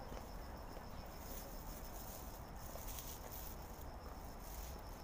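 Insects trilling in the trees: a steady, high, rapidly pulsing chirp.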